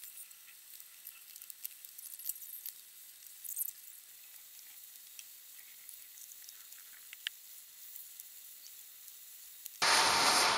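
Faint crackling sizzle of an electric arc as a welder works on the steel of an excavator's stick. Near the end a loud steady rushing hiss starts suddenly.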